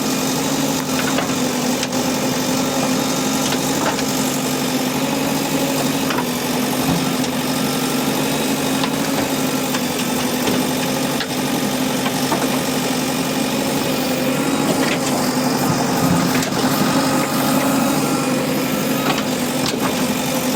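JCB backhoe loader's diesel engine running steadily, with occasional sharp clicks over it.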